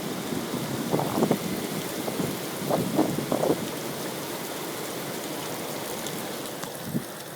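Heavy rain in a severe thunderstorm, a steady hiss, with a few short louder gusty rushes in the first half.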